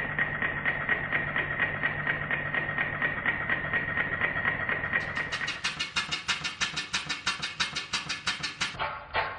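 Burnac Vulcan miniature vertical-boiler steam engine running in steam, with regular quick exhaust beats, several a second, over a steady whistle-like tone and a low hum. About halfway through it gives way to another model vertical steam engine running steadily with its own rapid beats while belt-driving a small dynamo.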